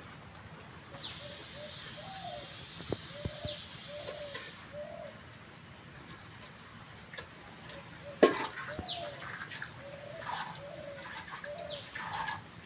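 A cow being milked by hand into a steel pail: milk squirting into the pail in a steady rhythm of strokes, with a hiss of streams and a run of short repeated notes.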